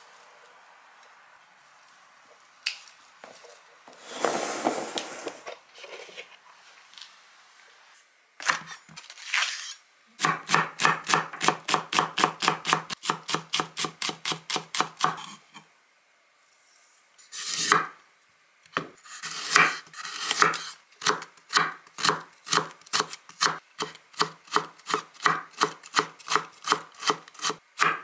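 A kitchen knife chops vegetables on a wooden cutting board in fast, even strokes, about four or five a second, first green onions and then carrots, with a short break partway through. Before the chopping starts there are a few sharp clicks and a brief rustle.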